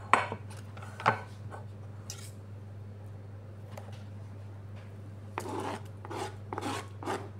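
Diced tomato scraped off a cutting board into a glass bowl: two light knocks near the start, then a run of short scrapes and soft knocks over the last two seconds. A steady low hum runs underneath.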